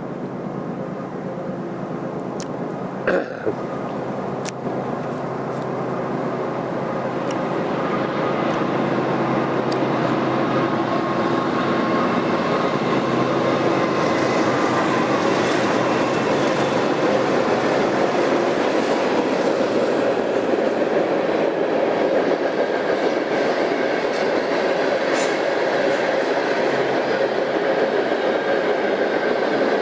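Freight train rolling past close by, a steady rumble and clatter of wheels on rail that grows louder about seven seconds in and then holds. A single sharp knock about three seconds in.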